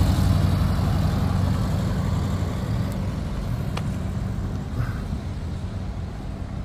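Road traffic: a passing motor vehicle's low engine rumble, loudest at first and fading gradually as it moves away.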